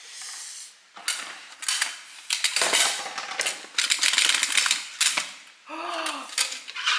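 Metal bread-machine pan being knocked, shaken and tipped with oven-mitted hands to release a baked loaf: a quick, irregular run of clattering knocks. About six seconds in there is a short surprised 'oh' as the loaf comes free.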